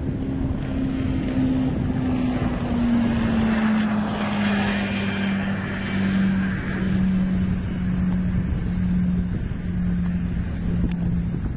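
Duramax 6.6-litre V8 turbodiesel speedboat running at full throttle, a steady drone that drops in pitch about three seconds in as the boat goes by, then holds at the lower pitch.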